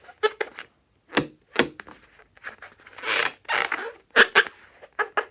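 Hands handling slime-making materials and balloons: about a dozen short crackling, rubbing noises, with a longer one about three seconds in.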